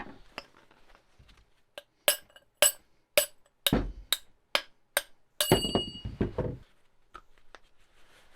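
A hammer striking the metal of a CV joint on a driveshaft about eight times, roughly two blows a second, followed by a longer metallic clatter with ringing.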